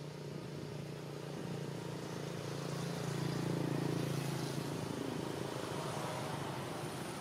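A motor vehicle driving past, its engine hum growing louder to a peak about three to four seconds in, then fading.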